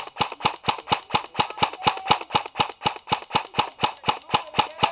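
Airsoft electric gun firing a long, steady full-auto burst of about seven shots a second.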